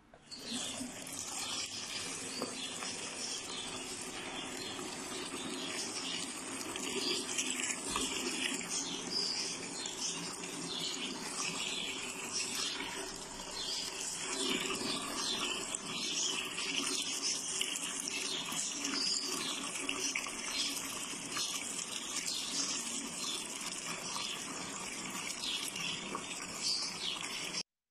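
Tap water running steadily from a faucet into a bowl, a continuous splashing hiss that cuts off suddenly near the end.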